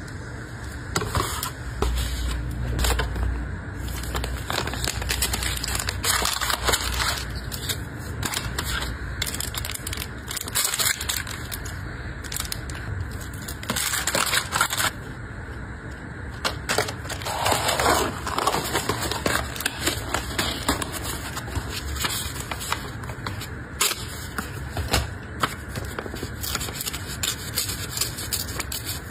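Close-up hand handling of packaging: crinkling plastic wrap, paper rustling and being folded, and small taps and scrapes on a kraft cardboard box. The sound comes in irregular stretches with many small clicks.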